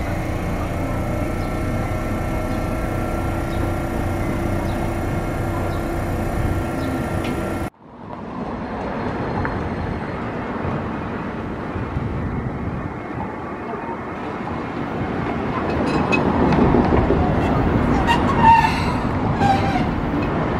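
Toden Arakawa Line 8800-series tram: first a steady hum from the tram standing at the stop, then, after a cut, its running noise of motor and wheels on rail growing louder as it moves close by, with a few brief high squeals near the end.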